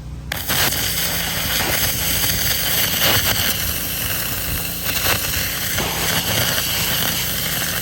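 Gas pressure washer spraying a 3100 PSI water jet into a pumpkin to cut out an eye: a loud, steady hiss of the jet that starts about a third of a second in, over the engine running under load.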